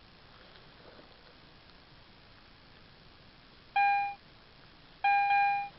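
Metal detector giving its target signal: a short steady beep about four seconds in, then a longer beep near the end, both at the same mid pitch.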